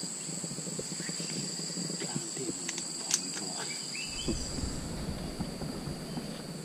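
Insects droning steadily in two constant high tones, with a single sharp click about three seconds in. From about four seconds in, low rustling of movement through grass and undergrowth joins the drone.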